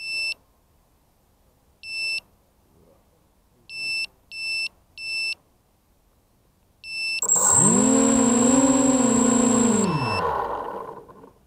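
ZMR 250 FPV quadcopter: short high-pitched electronic beeps, singly and in a quick run of three, then its motors spin up to a steady whine for about two and a half seconds and wind down.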